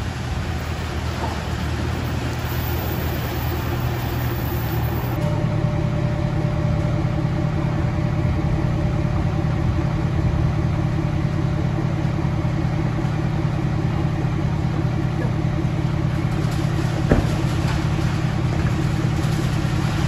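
Ford Super Duty pickup's engine running as the truck backs a stock trailer in, then idling steadily from about five seconds in. A single sharp knock comes near the end.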